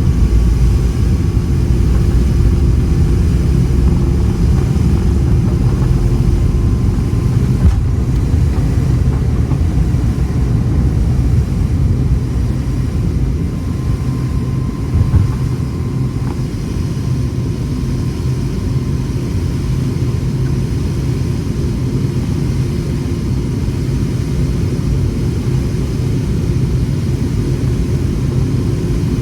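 Cabin noise of a Boeing 717-200 under way: its rear-mounted Rolls-Royce BR715 jet engines and the airflow make a loud, steady rumble with a steady hum over it.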